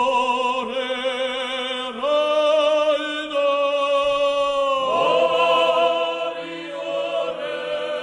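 Background music: voices singing long held notes with vibrato in a chant-like choral style, moving to a new chord every second or two.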